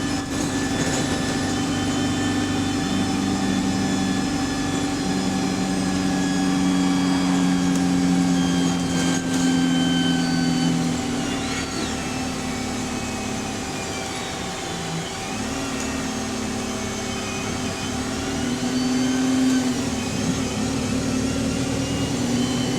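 Diesel engine and Voith automatic gearbox of a double-decker bus, heard from inside while driving. The engine note steps up and down several times as the bus changes speed.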